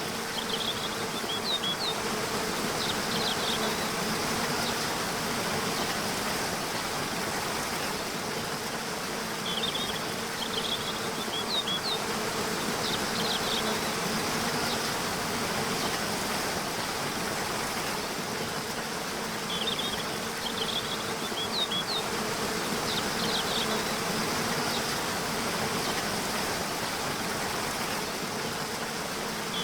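Waterfall rushing steadily, with a faint low hum underneath. A short bird phrase of quick high chirps and rising notes comes three times, about every ten seconds.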